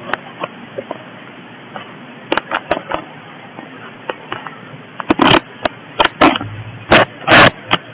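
Irregular knocks, clicks and scrapes over a steady hiss, sparse at first and louder and more frequent from about five seconds in, typical of a handheld camera being moved about and fumbled.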